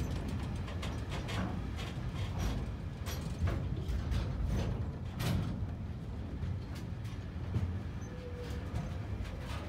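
Freight train of covered sliding-wall wagons passing close by: a steady low rumble of wheels on the rails, broken by frequent irregular clicks and knocks from the wagons and running gear.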